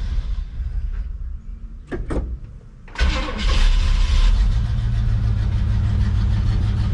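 1970 Chevy C10 pickup's engine cranking on the starter, then catching about three seconds in, revving briefly and settling into a steady idle. The engine is freshly tuned with new spark plugs and fuel filters.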